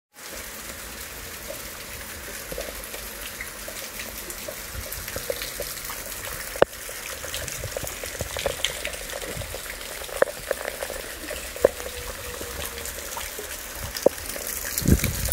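Steady rain falling in a hiss, with scattered drips and splashes and a few single louder drops striking close by.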